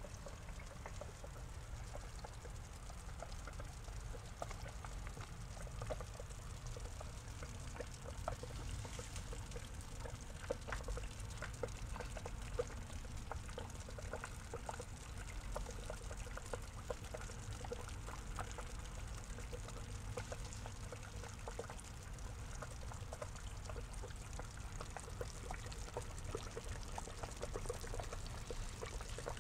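Water trickling and pouring steadily into a small pond, with many small irregular splashes over a low steady rumble.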